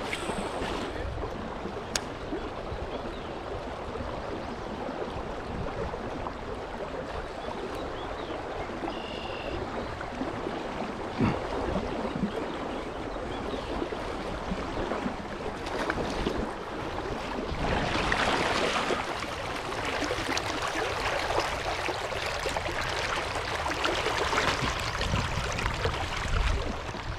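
Shallow creek water running steadily over rocks and riffles.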